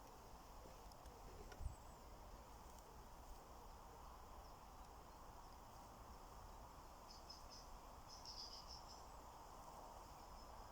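Near silence: quiet outdoor ambience, with a soft thump about a second and a half in and faint high-pitched chirping in short pulses near the end.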